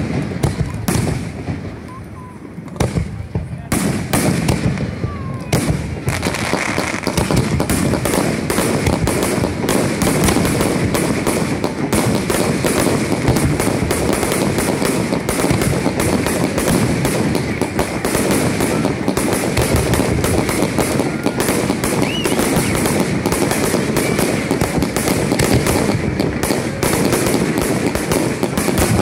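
Fireworks going off: a few separate bangs at first, then from about four seconds in a dense, continuous barrage of overlapping bangs and crackles.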